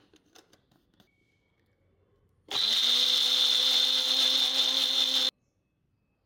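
A small personal blender's motor spins up and runs steadily for about three seconds, blending chopped onion and water into a paste, then cuts off abruptly. Before it come a few light plastic clicks as the jar is fitted onto the base.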